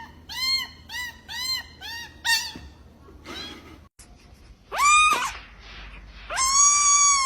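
Kitten mewing: a quick run of short high mews, about two a second, then two longer drawn-out meows, the last one held for about a second.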